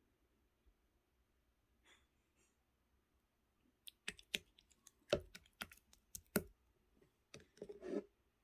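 Clear slime being squished and pressed by hand, giving a run of sharp, wet clicks and pops that start about four seconds in after a quiet stretch.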